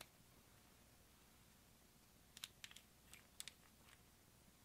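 Faint, sharp clicks and taps of small cosmetic containers being handled: a single click at the start, then a quick cluster of clicks from about halfway through as a glass nail polish bottle is picked up and its plastic cap twisted off.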